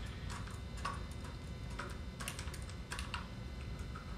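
Irregular light clicks and ticks, about a dozen, of a small screwdriver and screws being turned through a Sherline lathe's steel motor bracket into the motor standoffs, over a faint low hum.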